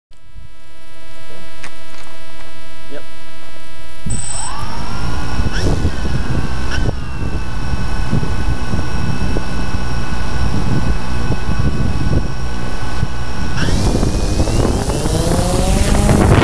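DJI Phantom quadcopter heard from its own mounted GoPro. A steady electronic whine plays at first. About four seconds in the motors spin up with a rising whine and settle into a steady buzz. Near the end the pitch climbs as the throttle rises and the drone lifts off.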